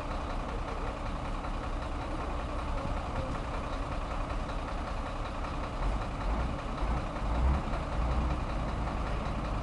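A heavy truck's diesel engine idling with a steady rumble, growing louder and lower for a few seconds near the end.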